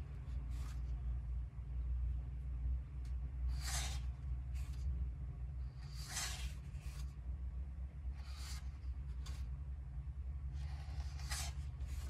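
Pages of a heavy hardcover photobook being turned by a gloved hand: a soft swish of paper about every two to three seconds, each followed by a fainter brush under a second later as the page settles, over a steady low hum.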